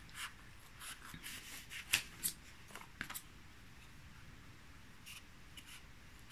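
Fingers handling a red craft-foam (moosgummi) piece and picking at the paper backing of double-sided tape strips on it, giving short crisp rustles and scratches. Most of them come in the first three seconds, the loudest about two seconds in, with a few faint ones later.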